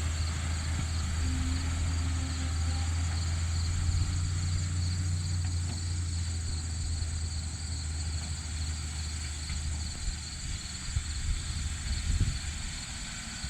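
Heavy gravel truck's engine running with a low, steady drone that fades away about eight seconds in. Insects chirp steadily throughout, and a few knocks come near the end.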